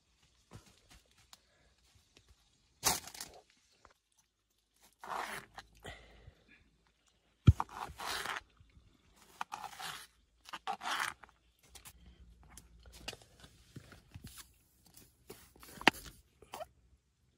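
Food-preparation handling sounds: a soft burger bun pulled apart by hand, then a knife cutting through a tomato onto a plastic cutting board, a series of short crunching and scraping strokes with a couple of sharp knocks, the loudest about a third of the way in and one near the end.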